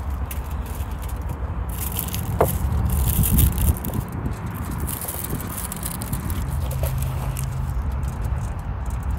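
Food-prep handling sounds: a knife cutting and scraping on a wooden cutting board and aluminium foil crinkling, over a low, uneven rumble of wind on the microphone. A short falling squeak about two and a half seconds in.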